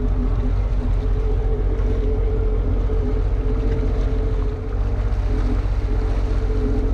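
Jet ski (personal watercraft) engine running steadily at low speed, a constant low hum heard from on board the craft.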